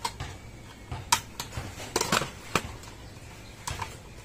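Handling noise from wiring a fluorescent light fixture: about seven irregular light clicks and taps as wires and small plastic parts are handled against the sheet-metal housing.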